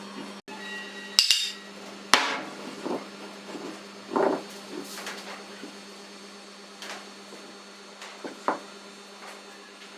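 Hammer knocks on wood, about half a dozen sharp, irregularly spaced strikes; the loudest come a second or two in. A steady low hum runs underneath.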